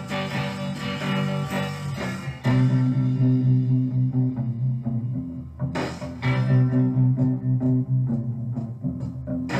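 Rock song played back at three-quarter speed, so slowed and lowered in pitch: guitars over bass. About two and a half seconds in it gets louder, with held low bass notes, and a single sharp hit lands near the middle.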